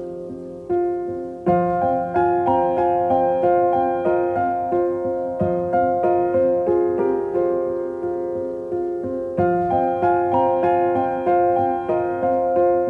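Background piano music: single notes and chords struck in a steady, even rhythm, growing fuller about a second and a half in.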